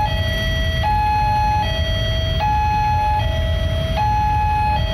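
Railway level-crossing warning alarm sounding, an electronic two-tone signal alternating between a higher and a lower tone, each held just under a second. It signals that a train is approaching. Under it is a low rumble of idling traffic.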